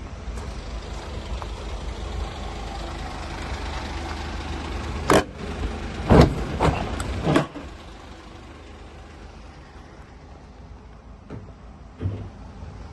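Mercedes refrigerated van running with a steady low rumble. A handful of sharp clunks come between about five and seven and a half seconds in, then the running stops. One more thump comes near the end.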